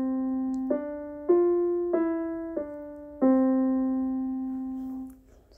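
Background music: a slow keyboard melody of single piano-like notes, a new note about every half second to second, the last one held and fading out near the end.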